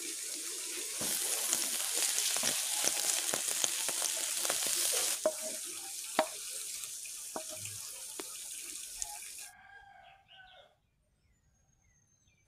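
Sauce sizzling in a hot frying pan with chopped garlic, chillies and holy basil leaves, while a spatula clacks and scrapes against the pan as the mix is stirred. The sizzling is loudest early on and cuts off suddenly about ten seconds in.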